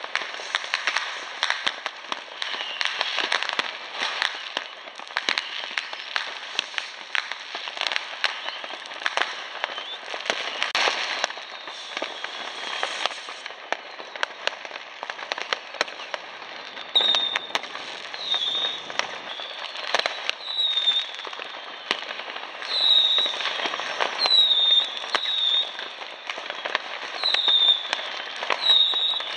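New Year's Eve fireworks and firecrackers going off all over a city: a dense, irregular crackle of bangs and pops from many directions. In the second half a string of short, falling whistles joins in.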